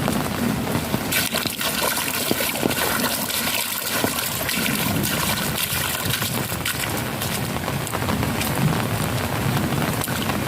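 Heavy rain falling steadily, with water running and trickling.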